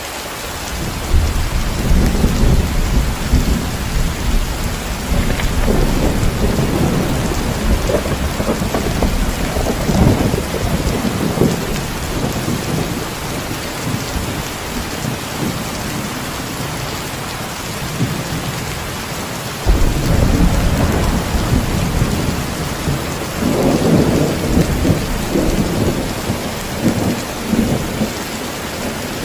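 Heavy rain falling steadily, with two long rolls of thunder: one rumbling in about a second in and dying away after roughly ten seconds, the other breaking in suddenly about two-thirds through and rolling on almost to the end.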